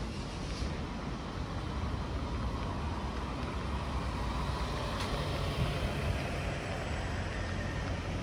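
Road traffic: cars and heavier vehicles going by with a steady low rumble that swells a little midway.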